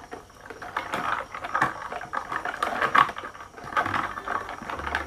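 Ice cubes clinking and rattling in stemmed glasses as iced drinks are stirred with straws: a quick, irregular run of small clicks.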